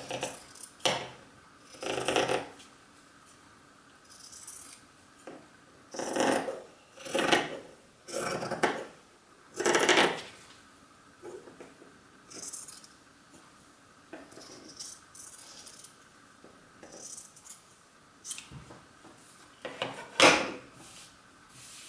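Scissors cutting through layers of black T-shirt jersey: a series of separate, uneven snips with pauses between them, thicker in the first half. A louder clack near the end as the scissors are set down on the wooden table.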